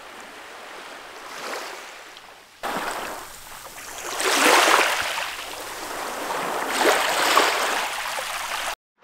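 Small sea waves washing onto a beach. A soft wash comes first, then after a sudden jump in level two louder washes of surf about two and a half seconds apart. The sound cuts off abruptly near the end.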